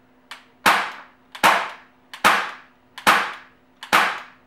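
Bear River BOA CO2 air pistol firing .177 steel BBs, five sharp cracks about one every 0.8 seconds, each followed by a short fading tail. A fainter click comes just before each shot.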